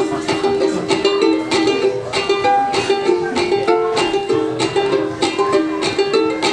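Ukulele playing an instrumental passage of a song, strummed chords in a steady rhythm.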